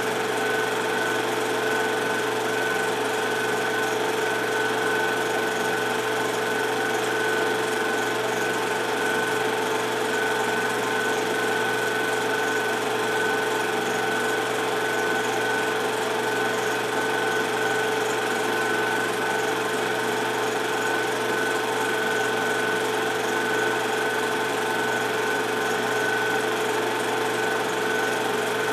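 Film projector running: a steady mechanical whir with two constant hums, one mid-pitched and one high, over a hiss.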